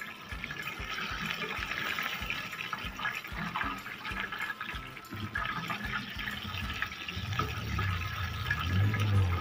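Flour-coated chicken pieces deep-frying in a pot of hot oil: steady sizzling and bubbling with small crackles. A low hum comes in about seven seconds in.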